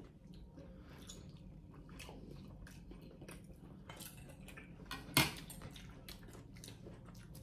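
Close mouth sounds of eating pho: soft chewing and small clicks of spoons and utensils against bowls. Noodles are slurped, with one louder short slurping burst about five seconds in.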